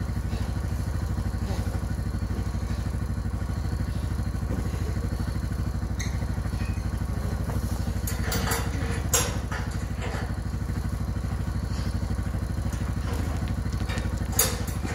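Side-by-side UTV engine idling steadily, with a few sharp knocks, the loudest about nine seconds in and another near the end.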